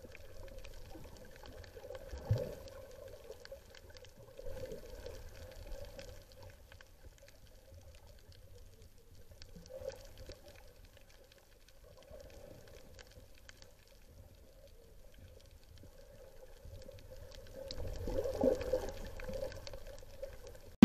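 Muffled water sloshing and bubbling heard underwater from a snorkeling camera, swelling now and then and loudest near the end.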